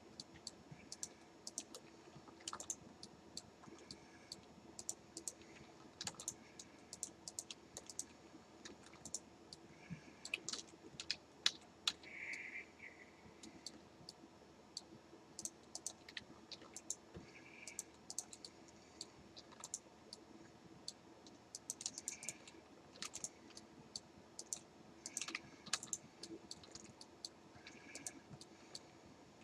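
Faint, irregular clicking of a computer mouse and keyboard as vertices are selected and merged with shortcuts, over a faint steady hum.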